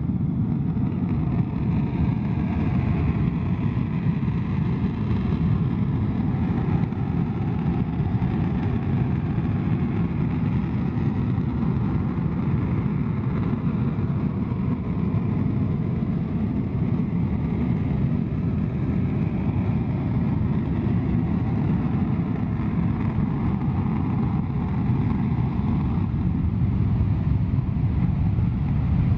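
Panavia Tornado's twin RB199 turbofan engines running at high power on the runway before take-off, a loud steady jet roar. The afterburners light near the end and the roar grows slightly louder.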